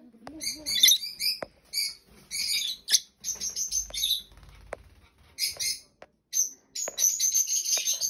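Small pet parrot chattering in quick bursts of scratchy, high-pitched calls, with a near-continuous run of chatter near the end. A few light clicks are mixed in.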